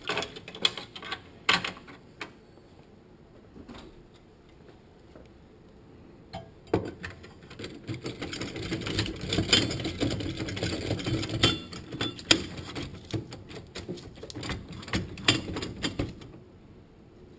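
Splined clutch part being twisted back and forth as it drops into a Toyota A340 automatic transmission case: a few sharp clicks, then from about seven seconds in a rapid metallic rattling and clicking as its splines work through the clutch plates. This is the sound of the part settling fully into place.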